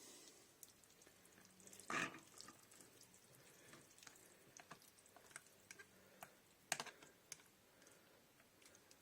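Near silence with a few faint, scattered clicks and light knocks, the clearest about two seconds in and again near seven seconds.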